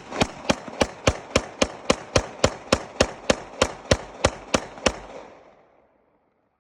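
9mm Glock pistol fire: a magazine emptied in rapid, evenly spaced shots, about three a second for some five seconds, each with a short echo, then stopping.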